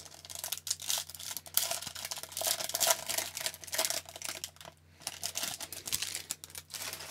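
Foil wrapper of an Upper Deck hockey card pack being torn open and crinkled as the cards are pulled out. Irregular crackling throughout, with a short pause a little past the middle.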